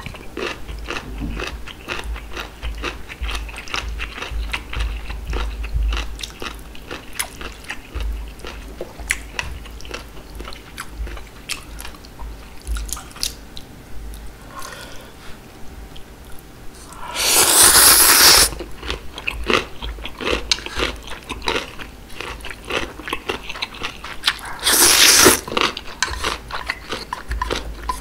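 Close-miked chewing and crunching of radish kimchi, many small crisp bites. Two loud slurps of ramen noodles cut through, a longer one about 17 seconds in and a shorter one about 25 seconds in.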